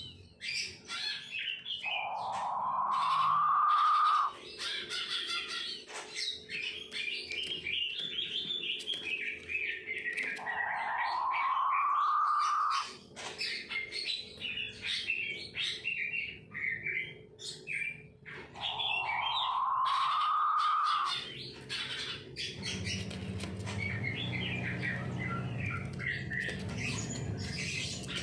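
King quail (puyuh batu) giving its 'ngorok' call: three long rising calls, each about two seconds, spaced about eight seconds apart, over continual quick high chirping.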